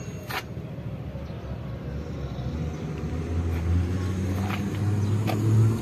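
Low engine rumble that grows steadily louder over the last few seconds, as of a motor vehicle passing nearby.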